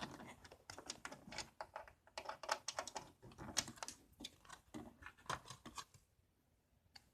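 Oscilloscope front-panel controls being turned and switched by hand: a rapid, irregular run of small clicks that stops about six seconds in.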